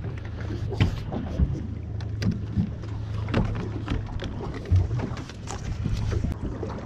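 Low steady hum aboard a fishing boat, with scattered knocks and clicks of things being handled on deck.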